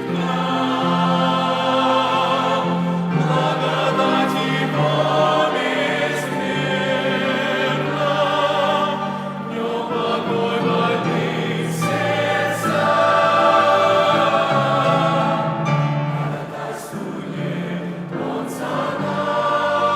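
Church choir singing a slow hymn in several voice parts, with long held notes.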